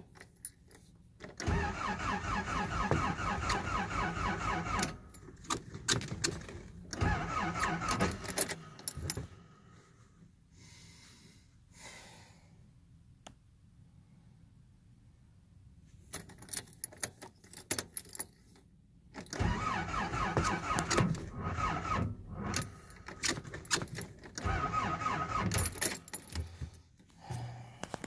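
Nissan 720's starter cranking the engine in four bursts of two to three seconds each, separated by quiet pauses, with an even rapid pulse. The engine does not catch: a failed cold start.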